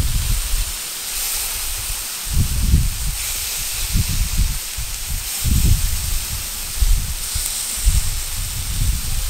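Marinated chicken drumsticks sizzling on a hot oiled iron griddle over a wood fire: a steady hiss that swells briefly a few times. Low, uneven rumbles of wind on the microphone come and go about every second and are the loudest sound.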